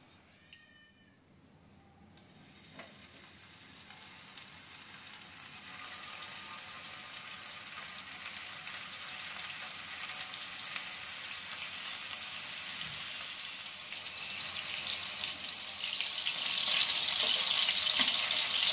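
Keema kebabs shallow-frying in oil on a tawa: a sizzle with scattered crackles that builds gradually from near quiet and grows clearly louder near the end.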